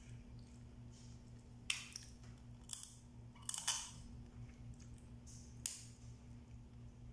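Cooked blue crab shell cracking and snapping as it is broken apart by hand: a handful of short sharp cracks, several bunched together in the middle, over a steady low electrical hum.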